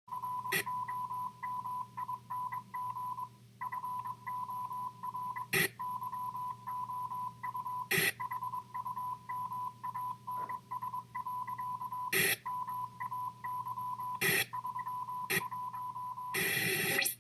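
Morse code sent as a single-pitch beep keyed on and off in dots and dashes over a low hum, broken by several sharp crackles of static and a short burst of static near the end.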